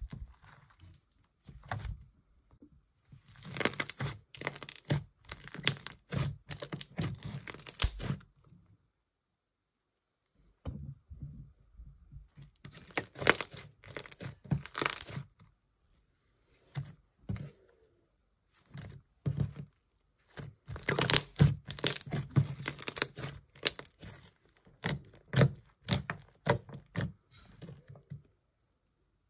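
Hands squishing and stretching slime, giving off crackly popping and clicking sounds in three long bouts with quiet pauses between them.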